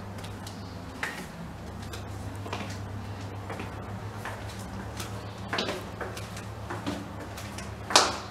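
Footsteps going down carpeted stairs, with short knocks and clicks from the handheld camera and its strap over a steady low hum. A sharper knock near the end is the loudest.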